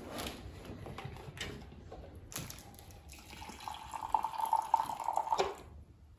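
Coffee poured from a thermos flask into a ceramic mug, a steady pouring stream lasting about two seconds that stops suddenly near the end. Before it, a few light knocks and clicks as the flask and hat are handled.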